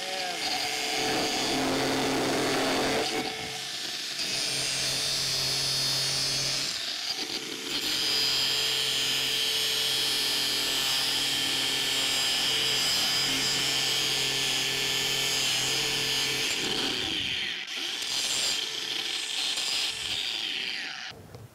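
Electric angle grinder running under load, its abrasive disc grinding old weld and braze off a cast-iron casting, with a steady motor whine. The sound eases briefly a couple of times as the disc is lifted. About three-quarters of the way through the grinder winds down and stops, runs again briefly, and winds down near the end.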